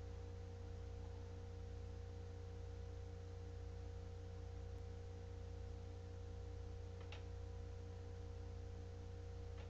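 Steady low electrical hum with a few faint fixed tones above it and light hiss, and two faint clicks near the end.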